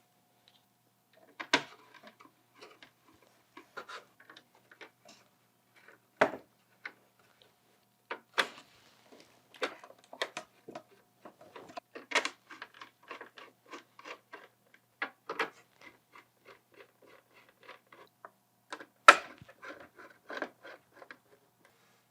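Irregular small clicks and taps of a screwdriver and screws as a motherboard is fastened down onto its standoffs, with a few louder knocks and the clicking growing busier about a third of the way in.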